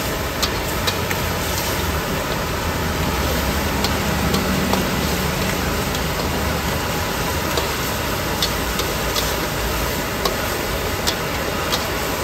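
Roadside street-food stall ambience: a steady roar of noise with about a dozen sharp clicks and clinks scattered irregularly through it.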